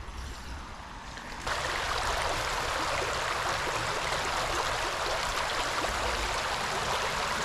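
Flowing river water: a steady rushing hiss that comes in suddenly and loud about a second and a half in, over a faint low rumble.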